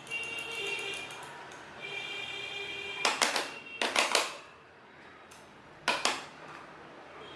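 Logitech M280 mouse buttons clicking in three quick groups of a few clicks each, about three, four and six seconds in.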